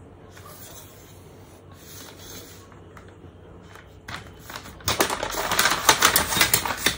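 Rapid scratching and clicking on pattern paper, from marking the seam allowance with a clear plastic drafting triangle held on the paper. It starts about five seconds in and runs as a quick, dense string of strokes.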